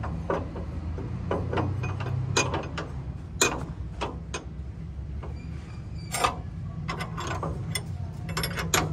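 Sharp, irregular metal knocks and clinks from work on a truck chassis, about one to two a second, over a low steady hum.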